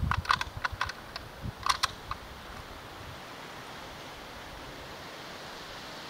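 Metallic clicks and clacks of a Russian-made 7.62×39 SKS rifle being handled at the receiver, a quick irregular run in the first two seconds, then only a steady background hiss.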